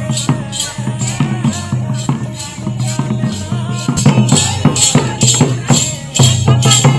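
Santali folk dance music: a madal, a two-headed hand drum, beating a quick steady rhythm, about three strokes a second, with a jingling rattle over it. It gets louder about four seconds in.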